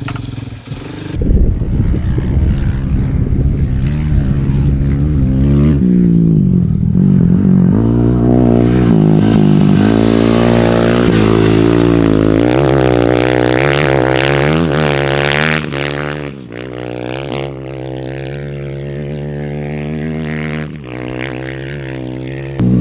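Dirt bike engine running under throttle as it is ridden, its pitch rising and falling with throttle and gear changes. It revs highest in the middle stretch, then runs quieter from about two-thirds of the way in.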